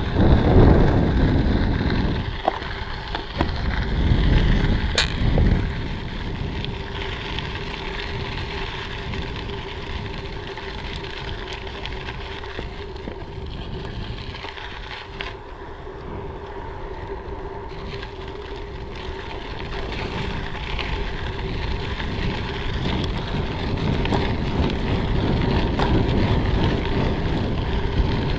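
Bicycle riding along a rail trail: tyres rolling on the trail surface, with wind buffeting the bike-mounted camera's microphone, heaviest in the first five seconds. A sharp click about five seconds in.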